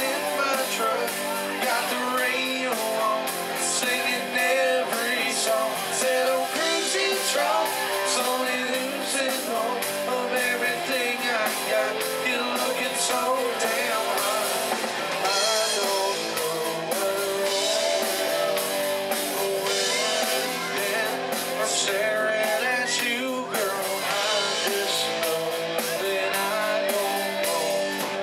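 Live country-rock band playing: a lead vocalist singing over two electric guitars, an electric bass and a drum kit with steady drum and cymbal hits.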